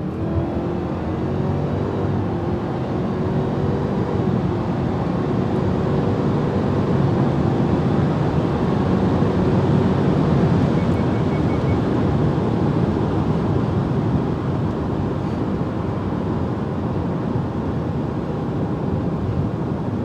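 2018 Subaru Forester XT's turbocharged flat-four accelerating hard from a 40 mph roll on a Cobb Stage 1 map. The engine note climbs over the first second, then holds nearly steady while road noise builds.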